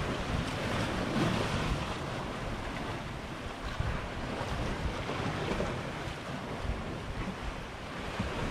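Sea surf washing against a rocky shore, with wind buffeting the microphone.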